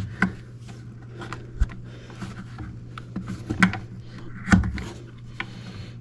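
Irregular plastic clicks and knocks as the Minn Kota Ultrex foot pedal is worked by hand and its top piece is unclipped and popped loose, the loudest knocks about three and a half and four and a half seconds in, over a steady low hum.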